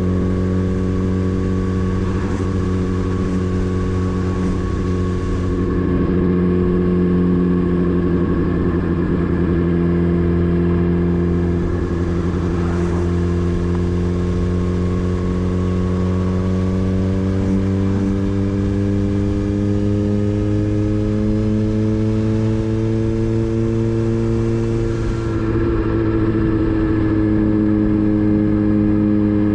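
Motorcycle engine running steadily, its pitch slowly climbing through the middle and shifting near the end.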